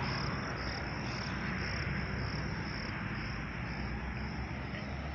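Crickets chirping in a steady, even pulse of about two chirps a second, over a low rumble.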